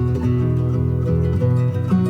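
Background music: plucked acoustic guitar playing a gentle pattern of notes.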